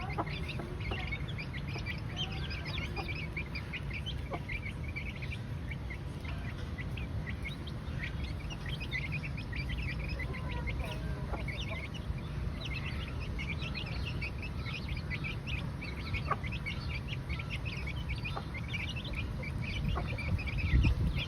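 A flock of chickens calling: many short, high chirps and clucks overlapping throughout, over a steady low rumble.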